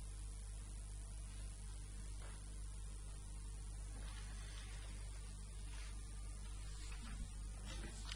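Steady electrical mains hum with a low hiss, with a few faint, brief noises in the second half.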